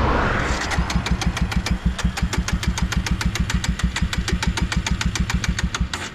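Motorcycle engine with an aftermarket loud exhaust starting and running with an even, rapid beat for about five seconds, then cutting out suddenly: the bike is stalling, as it has been doing repeatedly.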